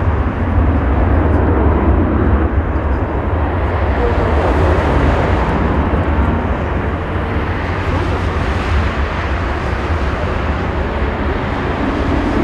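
Airbus A330-300 jet engines (Rolls-Royce Trent 700 turbofans) at take-off thrust during the take-off roll, a steady low rumble.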